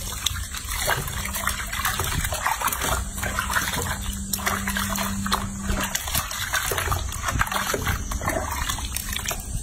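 Irregular splashing and sloshing of water in a sink as hands scoop water over a baby monkey and scrub its fur. A low steady hum runs under it and stops about six seconds in.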